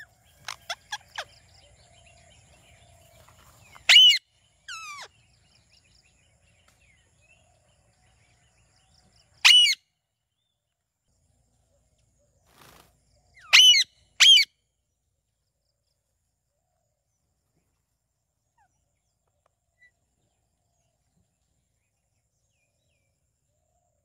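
Ring-necked parakeets giving short, loud, high-pitched calls, scattered through the first fifteen seconds. The loudest come about four, nine and a half and fourteen seconds in, the last as a quick pair.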